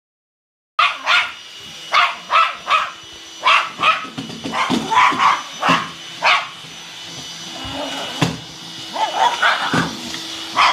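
Boston terrier barking sharply at a vacuum cleaner: about a dozen short barks in quick runs, a pause of a second or so, then more barks near the end, over the vacuum's steady hum.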